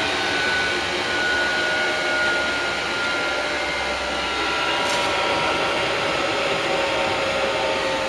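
The combustion-air blower of an 8 kW diesel air heater runs steadily in its shutdown cool-down cycle, a rushing air noise with a faint whine that slowly drops in pitch. It is blowing weaker than normal because the car battery is nearly flat and its voltage has sagged low.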